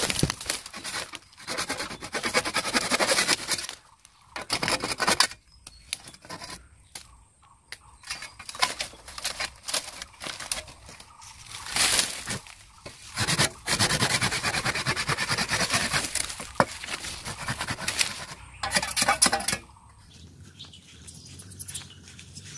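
Machete chopping at the base of a bamboo culm, with dry bamboo leaves and foliage rustling. Uneven bursts of rustling with short quiet gaps and a few sharp knocks.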